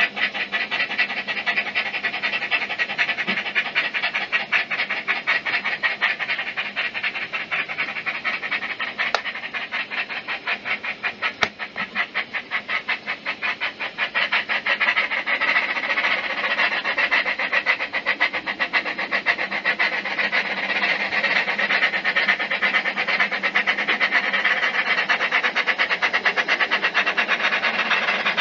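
Recorded steam-locomotive chuffing played through the small speaker of a Bachmann Double Fairlie model's DCC sound decoder, a rapid, even beat of exhausts. The sound grows louder and steadier about halfway through.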